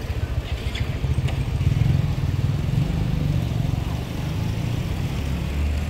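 Low, steady rumble of a motor vehicle engine running close by, dropping lower in pitch about five seconds in, over general street noise.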